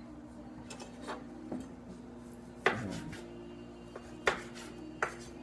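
Pestle pounding in a mortar, crushing palm sugar and other ingredients for som tam: about half a dozen sharp knocks at uneven intervals, the loudest a little past halfway, over a faint steady hum.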